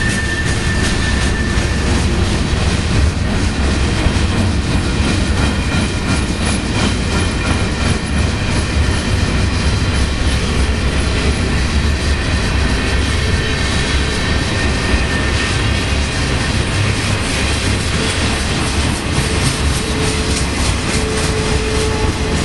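Cars of a Union Pacific manifest freight train rolling past: a loud, steady rumble of steel wheels on rail. A thin, high wheel squeal fades out about a second in.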